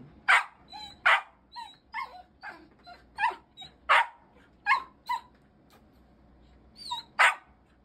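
A puppy barking in a string of about a dozen short barks, some loud and some soft, then a pause of about a second and a half before one last loud bark near the end.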